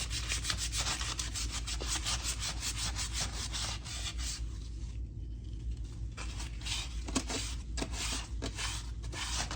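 Sandpaper rubbed by hand over primed bodywork on a car fender, in quick back-and-forth strokes about four to five a second, pausing briefly about halfway through.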